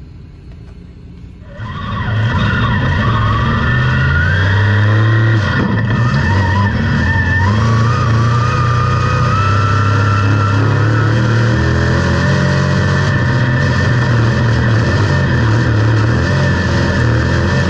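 Onboard sound of a dirt-track race car's engine on a qualifying lap, running hard with its pitch rising and falling through the corners. It comes in loudly about two seconds in, after a short, quieter stretch.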